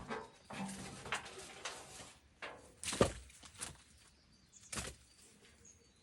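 Split firewood logs being carried and stacked: a few hard wooden knocks and thuds as logs land on the pile, the loudest about three seconds in, with scraping and shuffling of wood between them.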